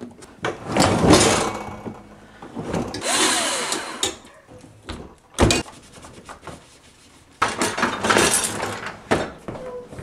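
Clattering and rubbing handling noises on a dishwasher: pliers picked up off the door, a paper towel rubbed over the stainless front panel, and a sharp knock about five and a half seconds in.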